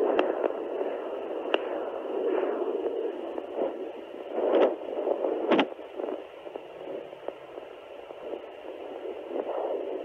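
Pocket fetal Doppler's loudspeaker giving a whooshing, static-like hiss that swells and fades as the probe is slid through gel across the lower belly, with a few sharp scratchy crackles from the probe moving on the skin. This is the Doppler picking up maternal blood flow while searching for the fetal heartbeat.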